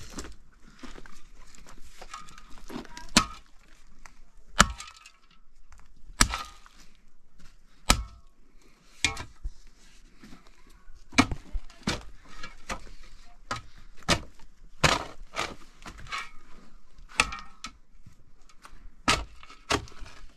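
A long series of sharp knocks or blows, irregularly spaced at roughly one a second, with two louder strikes about three and four and a half seconds in.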